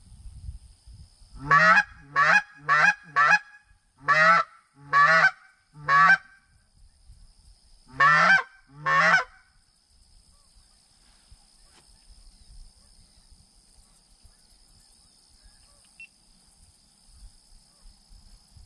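Hand-held goose call blown in loud, short honks with a break in pitch: nine notes in three runs (four quick, then three, then two), barking at passing geese to turn them toward the blind.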